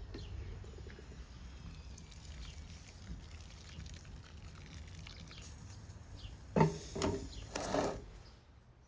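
Water poured from an enamel kettle onto pomegranate seeds in an enamel bowl, with a louder burst of sound about six and a half seconds in that lasts roughly a second and a half.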